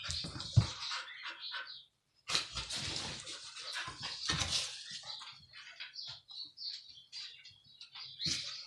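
Two sled dogs play-wrestling on a rug: irregular scuffling, rustling and mouthing noises, with a few low thuds near the start. The sound drops out completely for a moment about two seconds in.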